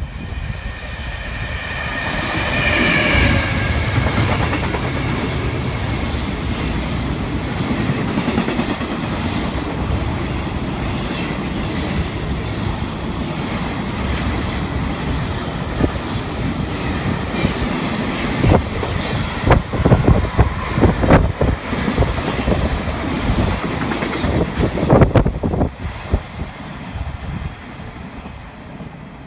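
JR freight train passing close by: a loud, steady rumble of the locomotive and wagons, with a brief high ringing tone about two seconds in. A run of sharp wheel clacks over the rail joints follows, and the sound falls away quickly as the last wagon passes, about 25 seconds in.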